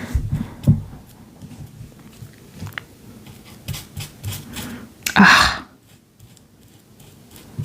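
Paper being handled and rubbed down for a collage on canvas: rustling and rubbing with scattered small taps and clicks, and one short, louder rustle of paper about five seconds in.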